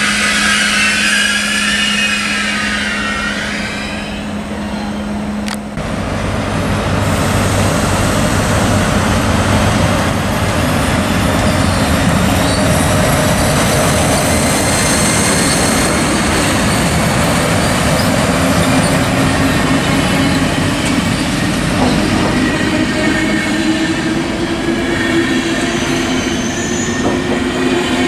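Electric train in a station. For the first five or so seconds there is a steady hum with a high, wavering squeal, and then it changes abruptly. After that comes the heavy rolling and rail noise of an SBB Re 4/4 II electric locomotive hauling its intercity coaches past, with a low motor hum that slowly rises in pitch as it gathers speed.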